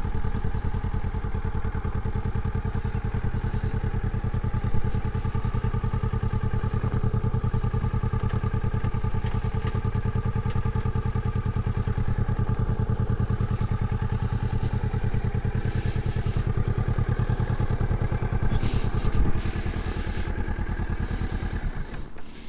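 Kawasaki Ninja 400's 399 cc parallel-twin engine idling steadily at constant pitch, dropping away near the end.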